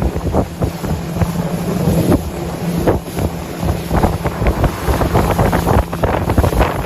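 Boat motor running steadily with a low hum, under heavy wind buffeting the microphone.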